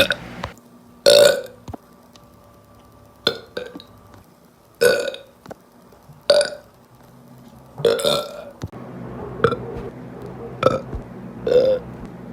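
A person burping again and again: a loud burp every second and a half or so, with shorter, smaller burps in between and toward the end.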